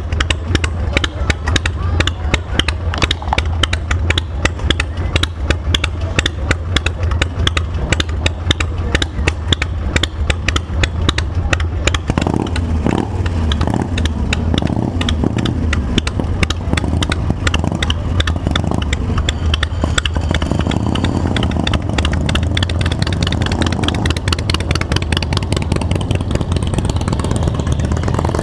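Harley-Davidson V-twin motorcycle engine idling with a rapid, even exhaust pulse. After about twelve seconds the pulsing eases, and engine pitch rises and falls several times, as when the throttle is blipped.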